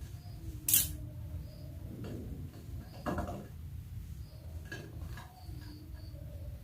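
Kitchen utensils clinking and knocking against dishes a few times, the sharpest clink about a second in, over a low steady hum.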